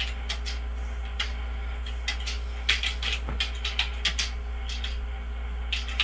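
Computer keyboard being typed on: quick, irregular key clicks, several a second, with short pauses, over a steady low hum.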